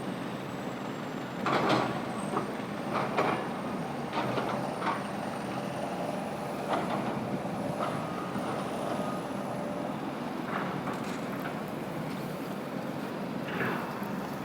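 Steady outdoor engine noise from a heavy vehicle such as a truck, with a few short knocks along the way.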